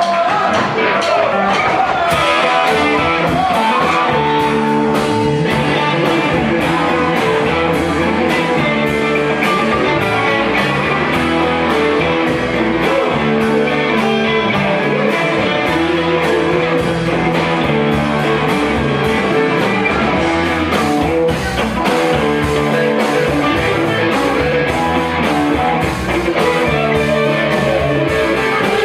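Live rock band playing, with electric guitars over drums keeping a steady beat.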